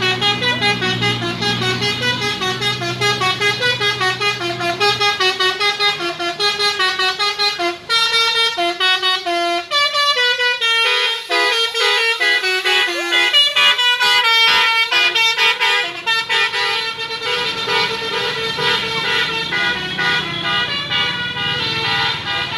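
Telolet basuri bus horn playing a long melodic run of quick stepped notes. A low engine hum runs beneath it at the start and again near the end.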